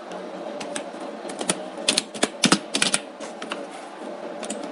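Computer keyboard typing: a dozen or so key clicks in uneven runs, thickest about two to three seconds in, with a faint steady hum underneath.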